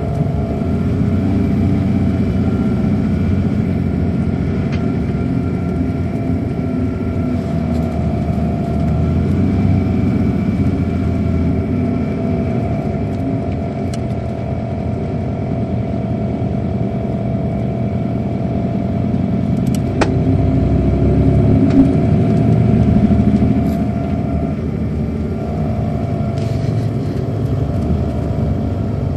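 Inside a 2007 MCI D4500CL coach bus under way, its Caterpillar C13 ACERT diesel engine running with a steady low rumble and a steady whine. About two-thirds of the way through there is a sharp click, and the engine grows louder for a few seconds before settling again.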